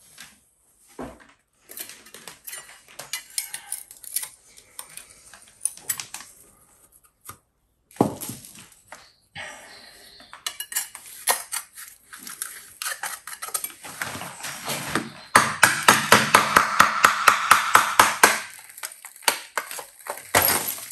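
Hammer striking a chisel to chip ceramic wall tiles and mortar off a splashback: scattered metallic clinks and knocks, then a fast run of rapid taps about fifteen seconds in that stops after a few seconds.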